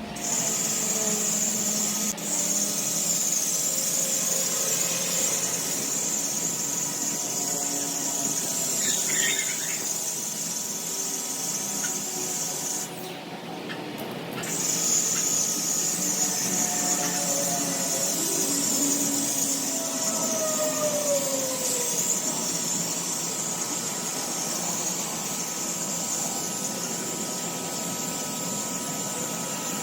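Ryobi 2000 PSI electric pressure washer spraying, a steady high-pitched hiss from the jet that stops for a moment about thirteen seconds in, then starts again.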